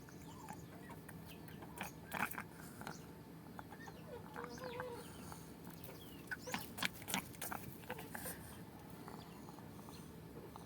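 Chickens clucking now and then: scattered short calls and clicks, busiest a little after the middle.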